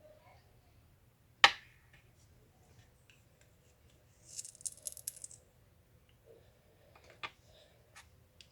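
Small plastic pot and glitter handled on a table: a sharp knock about a second and a half in, then a high rattle of glitter pouring into the pot for about a second, and a few light clicks near the end.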